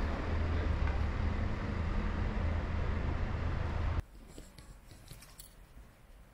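Street traffic: a vehicle's engine running with a steady low hum under road noise. It cuts off abruptly about four seconds in, leaving a quiet background with a few faint clicks.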